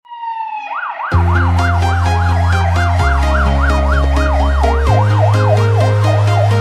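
Fire engine's electronic siren, switching under a second in from a slow glide to a fast yelp that rises and falls about four times a second. From about a second in it is heard over loud electronic music with deep bass notes that change every couple of seconds.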